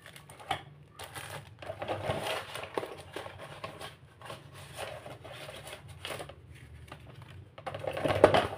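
Plastic packaging and a cardboard box handled during unboxing: irregular rustling and crinkling, loudest near the end.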